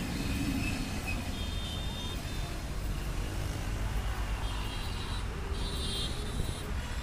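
Wheels of an Indian express train's passenger coaches rumbling on the rails as the last coach passes, the rumble thinning about a second in as the train runs away into the distance.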